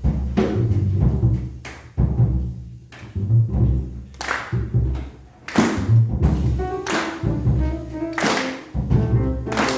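Jazz piano trio playing live: acoustic piano, double bass and drum kit, with repeated low notes and several cymbal crashes in the second half.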